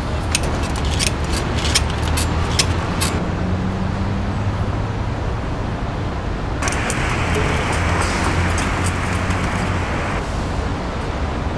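City street traffic: a steady rumble of passing cars and buses. A run of sharp clicks in the first three seconds, and a hiss that starts suddenly about halfway through and cuts off a few seconds later.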